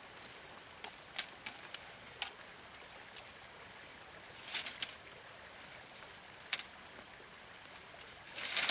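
Thin bamboo poles clicking and tapping lightly against each other as they are picked from a pile and laid on grass. There are a few scattered taps in the first couple of seconds, and a longer rustling clatter about halfway and again near the end.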